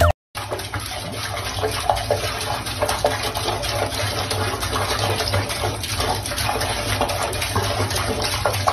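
Water running steadily from a faucet and splashing into a sink, with the stream breaking over a cat drinking from it.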